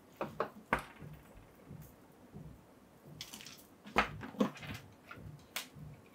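Hands handling a sixth-scale plastic action figure and its parts: scattered light clicks and taps, three in the first second, a quick cluster about four seconds in, with a brief soft rustle just before it.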